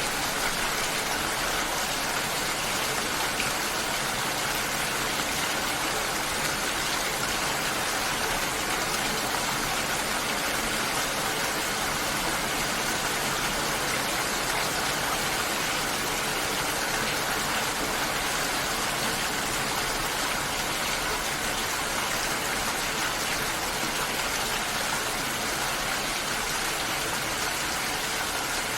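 Steady, heavy rain falling, an even unbroken hiss with no single drops or other events standing out.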